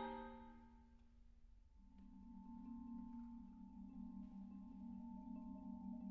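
Marimba and vibraphone: a loud chord rings away into near silence over the first second or so. About two seconds in, a soft, low, pulsing tremolo begins under a few quietly held higher notes.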